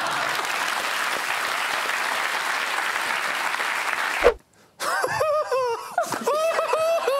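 Studio audience laughing and applauding for about four seconds, cutting off abruptly with a thump. After a short silence, a man's voice follows.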